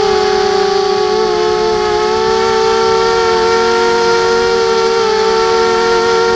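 Emax Nighthawk quadcopter's brushless motors and propellers whining steadily in slow flight, heard close from the frame-mounted Mobius camera. The pitch holds level, rising slightly about a second in and dipping a little near the end.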